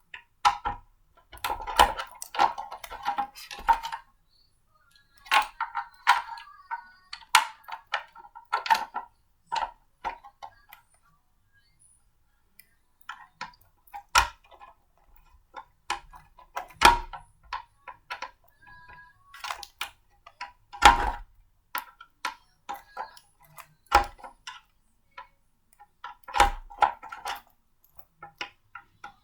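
Blender parts being handled and fitted together: irregular clicks, taps and knocks of hard parts, with a short ring on each. There are pauses about four seconds in and again from about eleven to thirteen seconds in.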